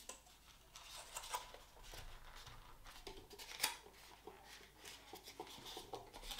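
Small plastic livestock pot being handled: faint clicks and rustles as its lid is pressed on and the pot is moved across a wooden table, the sharpest click about three and a half seconds in.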